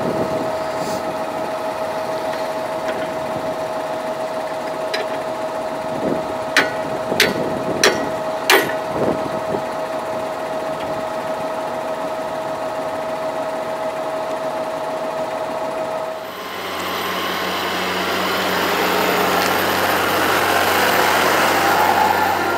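Tractor engine running steadily with a high whine, while four sharp metal knocks sound about six to eight and a half seconds in: tools striking the plough during a bolt change. About sixteen seconds in the sound switches to a louder tractor working a mouldboard plough through soil, with engine drone and the rush of turning earth.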